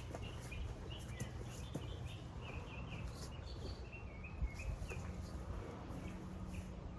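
Birds chirping, many short high calls in quick succession, over a low steady rumble.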